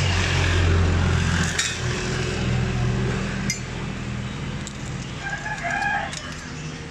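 Small metal injection-pump parts clinking against a steel dish of diesel fuel as they are picked out, over a steady low engine hum. A rooster crows briefly about five seconds in.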